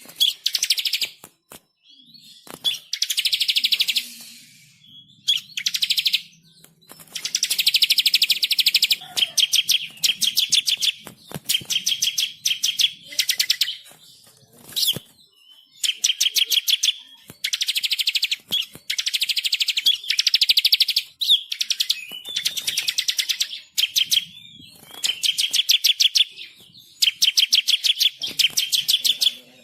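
Songbird singing loud, fast, chattering phrases of rapid high notes, each a second or two long with short pauses between. It is a masteran recording, bird song played to train caged songbirds and provoke them into singing.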